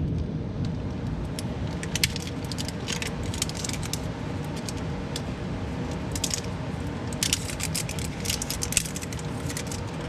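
Crackling and clicking of a plastic piece being worked off a new spin-on hydraulic filter by hand, in scattered runs of small clicks, over a steady low hum.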